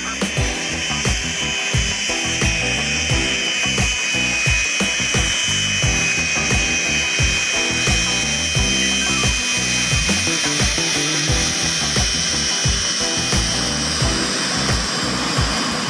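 Background music with a steady beat and a shifting bass line, with a steady high whine held above it.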